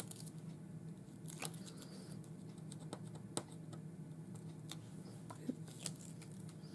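Faint, scattered small clicks and crackles as the backing liners are picked and peeled off strips of double-sided tear tape on a card box net.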